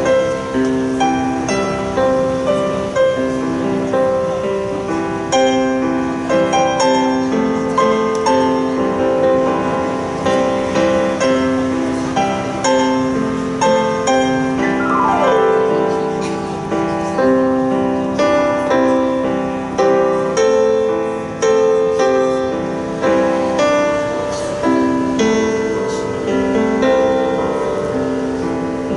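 Electronic keyboard played solo with a piano voice: a slow melody over held chords, with one downward glide in pitch about halfway through.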